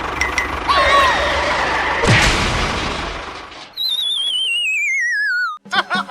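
Small engine of a homemade mini tractor running steadily with a knock or two, then a long falling, wavering whistle, followed by a few quick springy sounds near the end.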